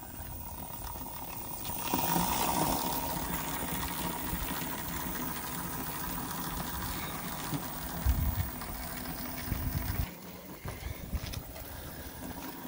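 Electric go-kart driven by a car alternator converted to a motor, running with a steady whine over the rumble of its tyres on tarmac. It grows louder about two seconds in, with a few low bumps later on.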